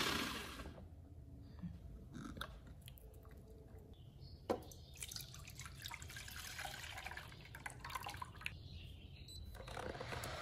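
The electric chopper's motor dies away in the first second. Then thick pumpkin-pandan batter is poured from the plastic chopper bowl into a nonstick pan, with soft dripping and splashing and a sharp knock about four and a half seconds in. Near the end a steady whir rises as the induction cooktop is switched on.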